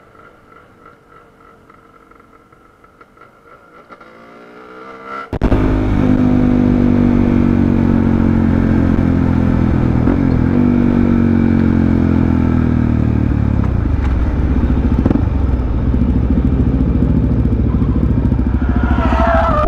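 Motorcycle engine running under way: faint at first, then about five seconds in a cut to a much louder, close engine note that slowly falls in pitch as the bike eases off. Near the end a wavering high squeal rises over the engine.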